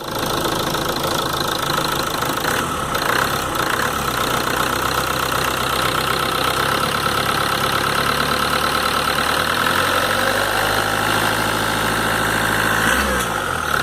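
Ford Ranger 3.0 Power Stroke TDCi diesel engine running, with a steady high whine over the engine note. The engine's pitch shifts a little near the end.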